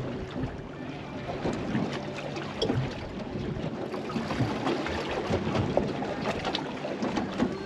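Wind buffeting the microphone and water lapping and slapping against a small boat's hull, with irregular small knocks throughout.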